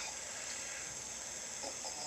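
A sleeping person snoring: the quieter stretch between two loud snores, with a faint rasping breath starting near the end over a steady hiss.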